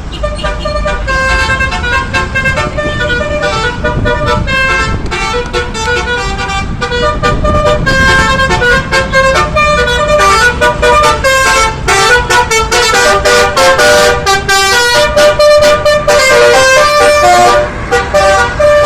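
Bus telolet horn from a DAV module playing a tune as a fast run of stepped musical horn tones, over a low rumble from the bus.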